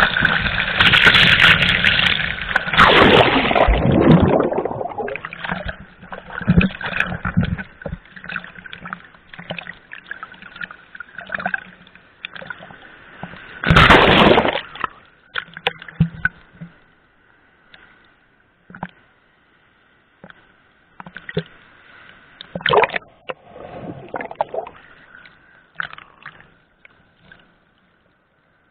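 Water splashing and sloshing in uneven surges, loudest in the first few seconds and again about fourteen seconds in, with smaller splashes between.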